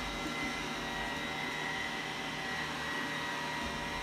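Steady machine hum, like a motor or fan running, with a faint high whine over it and no change in level.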